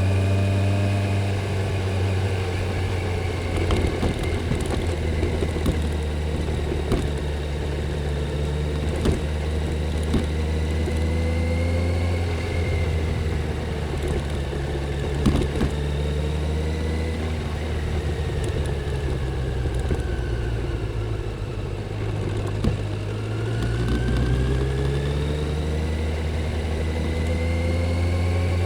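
Stock Kawasaki Z900's inline-four engine running through its stock exhaust while riding, holding a mostly steady note. About three-quarters of the way through the engine note drops and then climbs again as it accelerates. A few brief sharp knocks are heard along the way.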